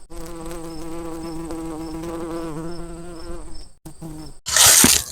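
Honeybees buzzing close to the microphone: a steady droning hum that wavers slightly in pitch. A loud rushing noise cuts in about four and a half seconds in.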